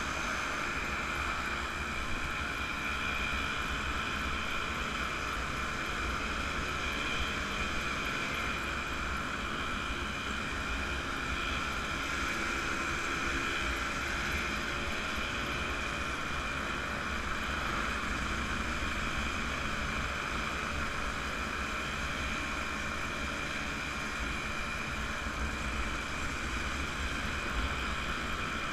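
Small vintage two-stroke motorcycle engines running steadily at cruising speed, heard from a moving bike in the group, with a constant low wind rumble on the microphone.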